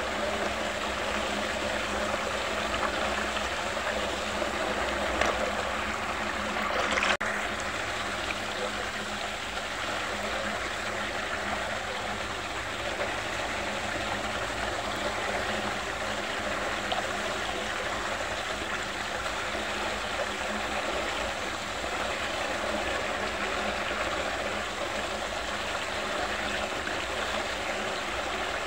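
Water of a whirlpool rushing steadily as it swirls down a drain hole, with a steady low hum underneath. A single sharp click about seven seconds in.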